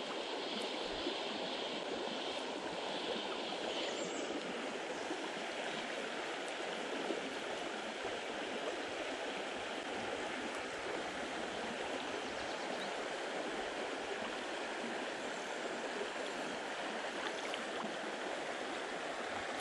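Shallow creek water running steadily over its bed, a constant even rush of flowing water.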